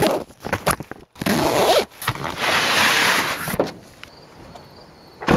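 Handling noise close to the microphone: a loud run of rough rubbing and scraping rasps for about three and a half seconds, then much quieter with a faint steady high tone, and a sharp click near the end.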